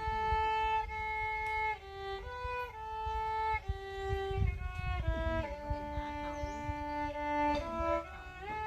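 Solo violin playing a slow melody of long held notes that step from one pitch to the next.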